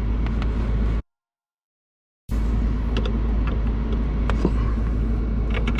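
Steady low rumble with scattered light clicks and taps from handling a fog-light housing. The sound cuts to dead silence for about a second just after the start, then comes back unchanged.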